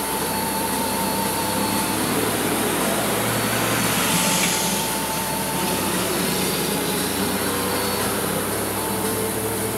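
Gasoline pump nozzle filling a vehicle's fuel tank: a steady rushing hiss of flowing fuel with a faint steady whine, swelling briefly about halfway through.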